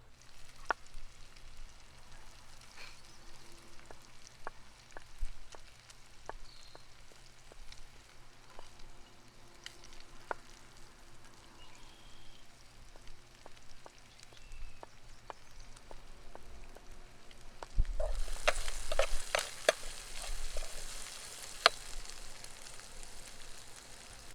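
Light knocks and clicks of cookware being handled. Then about 18 seconds in, a loud sizzle starts suddenly as food goes into hot fat in a pan, with sharp clicks of stirring, and carries on frying.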